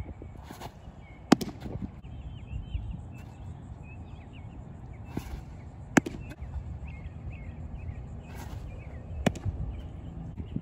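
Baseball pitches popping into a catcher's mitt: three sharp pops a few seconds apart, each less than a second after a short scuffing rush of the pitcher's delivery. Birds chirp throughout.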